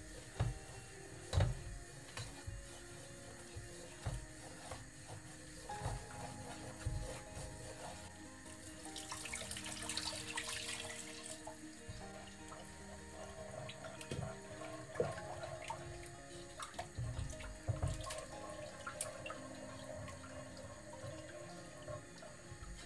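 Wooden spoon stirring a butter-and-flour roux in a nonstick pot, with scattered knocks and scrapes against the pot. About nine seconds in, milk pours in from a plastic jug for around two seconds, and the spoon then stirs the liquid sauce.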